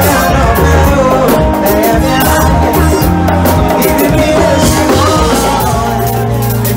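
Live band playing an Afrobeats-style song: a singer over electric guitar, bass guitar and drums, with a strong bass line.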